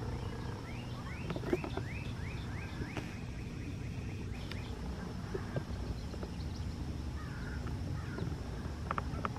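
A bird calls a quick run of about seven rising chirps about a second in, over a steady low rumble with a faint hum.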